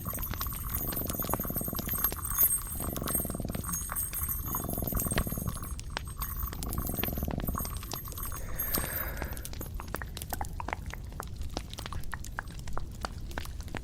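Close-miked ASMR trigger sounds: slow, evenly spaced rubbing or brushing strokes about every one and a half seconds, giving way about eight seconds in to scattered light taps and clicks.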